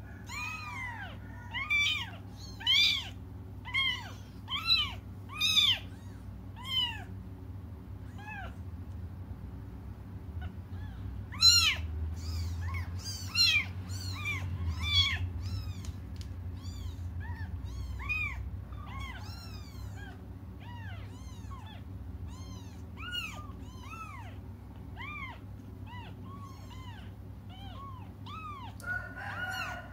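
Newborn kittens mewing over and over in short, high-pitched cries, crying for their absent mother. The cries come thick and loud near the start and again around the middle, then thin out to single mews, over a steady low hum.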